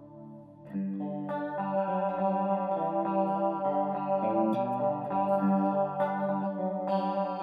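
Electric guitar played through a Wampler Nirvana chorus pedal in chorus mode, set for a shimmery chorus at a more intense depth. Chords start about a second in and ring on.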